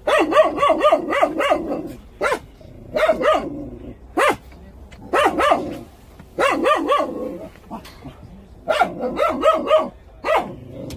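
A dog barking in quick runs of short, high-pitched barks, several runs one after another with short gaps between them.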